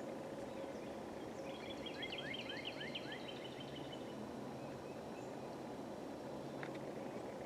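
Outdoor ambience: a steady low rumble and hum, with a songbird singing a quick run of about eight falling notes from about one and a half seconds in, and a single short chirp near the end.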